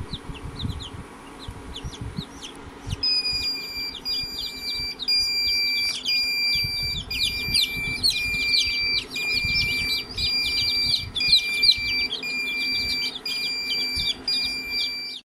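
A crowd of newly hatched chicks peeping in an egg incubator: many quick, high, downward-sliding chirps overlapping one another. From about three seconds in, a steady repeating pattern of high electronic tones plays under the peeping, cutting off suddenly near the end.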